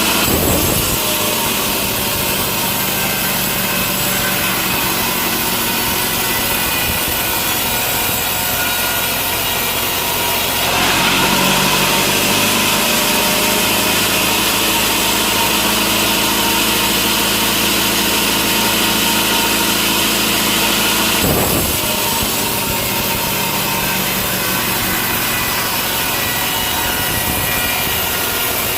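Sawmill saw running steadily and cutting through wood. It grows louder and brighter from about a third of the way in to about three quarters through.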